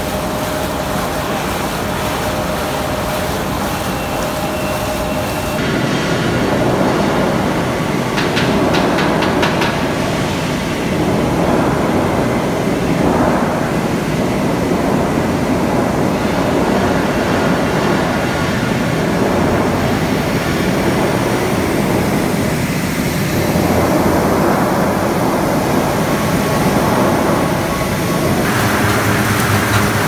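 HDPE film recycling washing line running: steady, loud machinery noise with water churning in the hot washing tank. The sound changes abruptly about six seconds in and again near the end.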